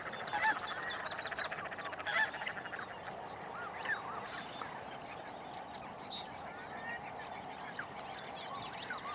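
Common shelducks calling: a rapid cackling series in the first couple of seconds, then many short, high whistled notes repeating throughout over a steady background of distant bird calls.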